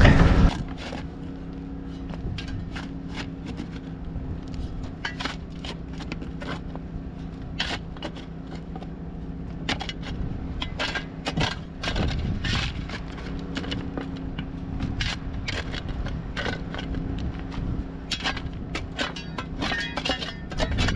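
Small shovel scraping and scooping in rocky dirt while digging a post hole, with irregular gritty scrapes and clinks of the blade on rock. A steady low hum runs underneath.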